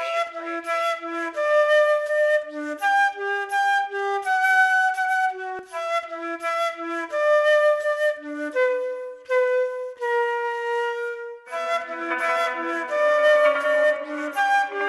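Background music: a flute melody of held notes over a lower line of short repeated notes. The music grows fuller about eleven seconds in.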